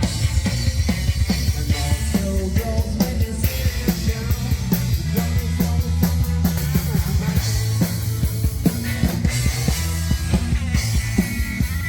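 A rock band playing live, with electric guitars, bass and a drum kit keeping a steady beat, and singing heard over it.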